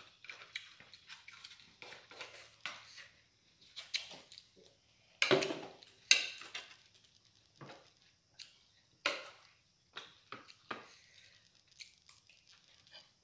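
Eating at a table: scattered clinks and scrapes of cutlery on dishes and chewing close to the microphone, with two louder clattering knocks about five and six seconds in.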